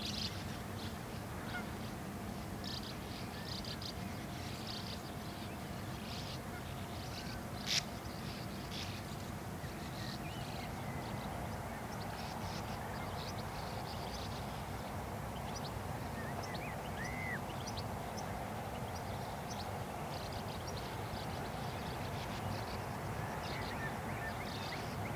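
Sand martins calling at their nesting colony: many short, repeated calls throughout, over a steady low background noise. A single sharp click about eight seconds in.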